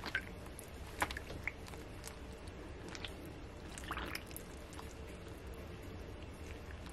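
A hand pressing stacked, dye-soaked paper down into onion-skin dye in a glass baking dish: a few faint, scattered wet squishes and light taps over a low steady hum.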